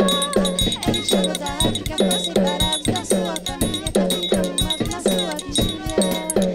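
Background music: a capoeira song with a steady percussive beat of about three strokes a second.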